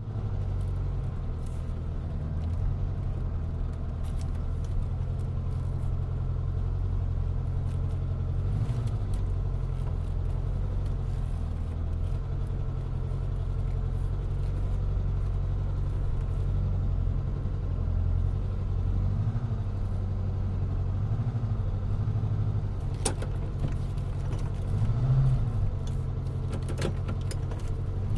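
Car engine running steadily at low revs, a deep even hum with slight swells now and then. A few sharp clicks come in the last few seconds.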